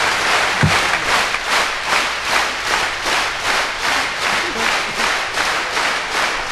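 Audience applause that settles about a second in into rhythmic clapping in unison, a steady beat of roughly two and a half claps a second.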